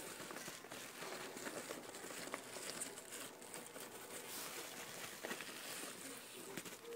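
Crinkling and rustling of a padded mailer and the small wrapped items inside it being handled, with scattered light clicks and taps.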